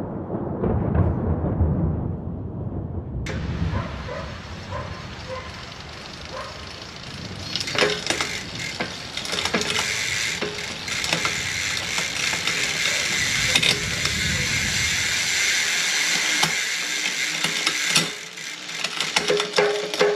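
Hunt TrailWide rear hub freewheeling as the rear wheel spins, a fast steady buzz that sets in about three seconds in. Scattered clicks through it and a cluster of stronger clicks near the end.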